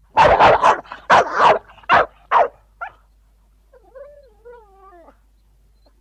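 Dog barking: a rapid run of about seven loud barks in the first two and a half seconds, then a quieter, wavering whine about four seconds in.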